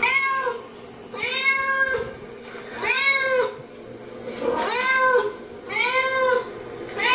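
A cat meowing over and over on a television: six long meows, each rising then falling in pitch, one every second or two.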